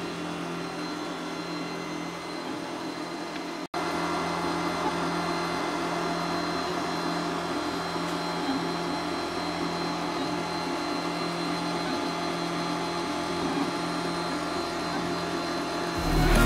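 Geeetech A10 3D printer running a print: a steady mechanical hum made of several held tones over a noise bed, from its cooling fans and moving motors. The hum drops out for an instant about four seconds in and is a little louder afterwards.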